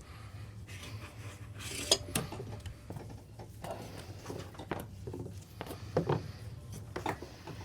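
Steady low hum of the sailboat's engine under a scatter of short knocks, clicks and rubbing sounds, the loudest about two seconds and six seconds in.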